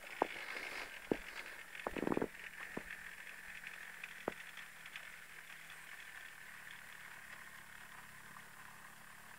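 Faint, distant running of a Suzuki RG Gamma 125cc two-stroke engine on a home-built mower, a steady drone that slowly fades. A few sharp clicks come in the first few seconds.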